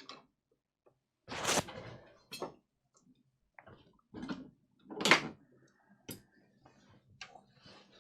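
Tools and parts being handled on a repair bench: an irregular run of knocks, clicks and rustles, with two louder clattering bursts about one and a half seconds in and about five seconds in.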